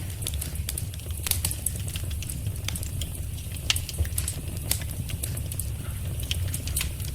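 Wood fire in a fireplace crackling, with irregular sharp pops and snaps over a steady low rumble of flames; one pop a little past halfway is louder than the rest.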